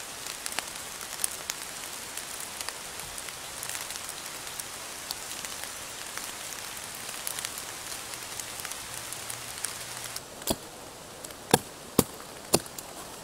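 Steady rain falling on forest leaves, with many scattered drips. About ten seconds in the rain sound drops away and four sharp knocks follow in quick succession.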